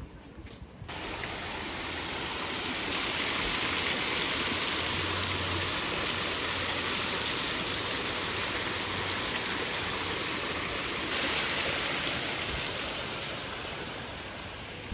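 Small cascade of water splashing down over rocks into a pool: a steady rushing splash that comes in about a second in, is loudest through the middle and eases a little near the end.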